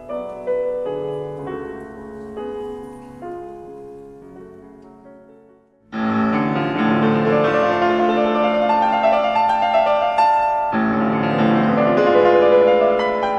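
Classical piano music: a quiet passage on grand piano that fades away about halfway through, then a sudden jump into a much louder, fuller passage of rapid piano playing.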